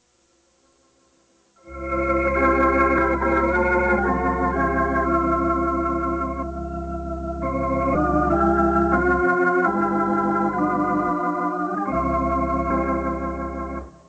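Organ music: sustained chords over a steady deep bass, starting about two seconds in and breaking off just before the end.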